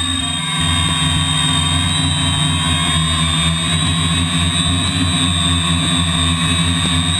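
RC model airplane engine idling steadily, with a thin, steady high whine over it.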